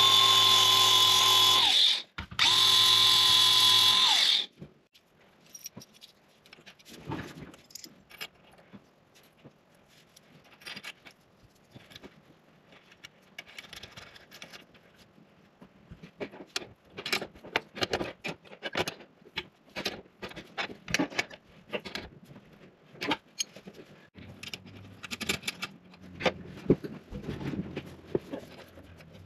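DeWalt 20V cordless angle grinder run twice, about two seconds each, taking the paint off around a bolt hole in the cyclone's sheet-metal flange. After that, scattered metallic clicks and clinks as bolts, washers and nuts are handled and fitted, some of them with a screwdriver.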